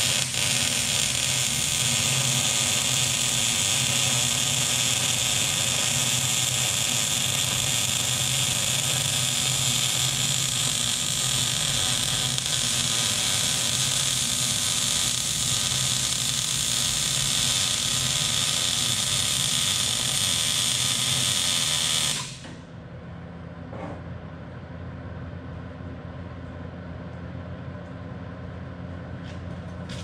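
Arc welding a steel tailgate latch bracket onto a dump truck body: a steady sizzling arc that cuts off about 22 seconds in, leaving a low steady hum.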